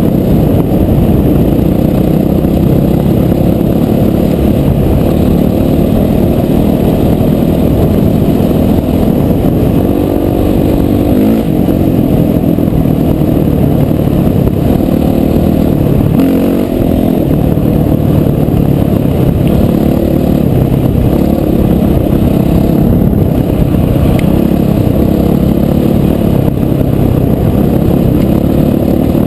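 Motorcycle engine running steadily under way, mixed with the rumble and clatter of tyres on a gravel track.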